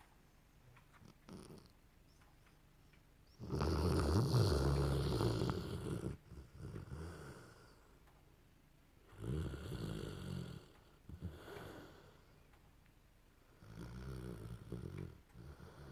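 A sleeping dog snoring: three long, rasping snores about five seconds apart, the first the loudest and longest.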